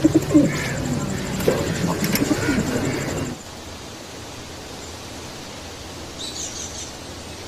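Bird calls with cooing, which stop about three seconds in. A steady hiss follows, with one brief high chirp near the end.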